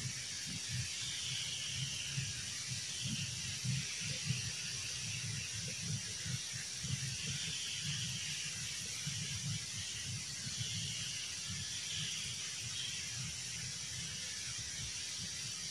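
Quiet outdoor ambience of steady high-pitched insect chirring, with fainter warbling calls every couple of seconds and soft, irregular low thumps.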